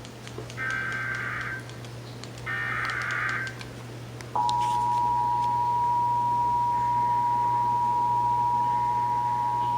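Emergency Alert System test tones: two bursts of the buzzy SAME digital header, each about a second long, then after a short gap the steady two-tone EAS attention signal (853 and 960 Hz) begins, over a low hum.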